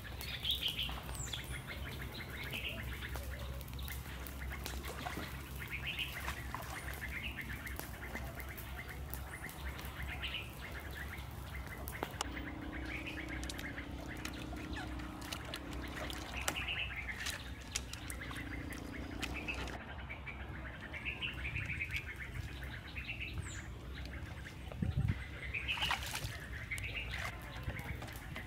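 Birds calling with short repeated chirps over a steady low background rumble, with a few sharp knocks, one about ten seconds in and more near the end.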